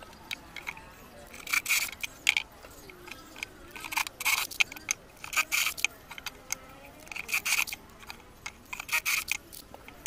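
Cordless drill boring into pine boards in short bursts, several times, with sharp clicks between them.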